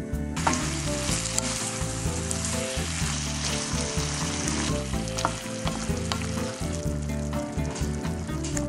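Food sizzling in a frying pan as a stir-fry is turned with a spatula, with a few sharp clicks. The sizzle starts about half a second in and eases after about five seconds.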